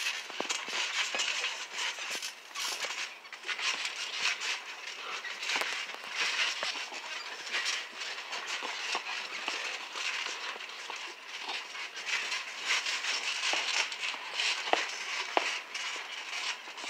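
Trampoline rattling and creaking under bouncing, scuffling feet, with scattered knocks and the thud of boxing gloves, over a steady rushing noise.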